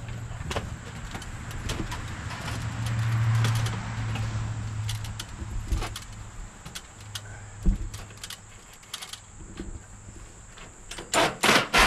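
Installation work on furnace ductwork: scattered clicks, knocks and metallic clinks over a steady low hum, then near the end a quick run of about six sharp strikes, like hammering.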